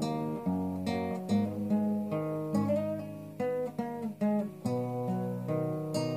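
Solo nylon-string classical guitar, fingerpicked: single plucked melody notes over low bass notes, each note ringing on.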